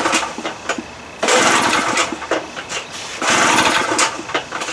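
Small two-stroke outboard motor being pull-started with its recoil starter cord, choke on: two full pulls, each a rasping crank of about a second, and the motor does not catch.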